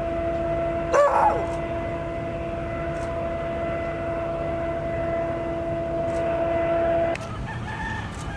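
A steady, even humming drone holds one pitch and cuts off abruptly about a second before the end. A short falling call sounds over it about a second in.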